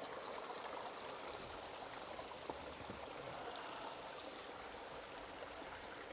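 A stream running steadily as a continuous rush of water, with a faint click about two and a half seconds in.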